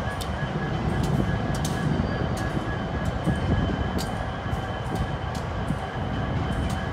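Union Pacific intermodal freight train rolling slowly past: a steady rumble of wheels on rail, broken by irregular clicks and clanks, with a faint steady high tone above it.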